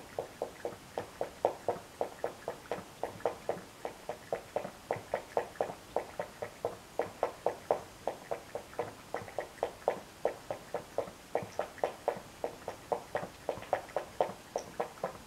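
A cat eating or drinking at its dish: a steady run of short mouth clicks, about four a second.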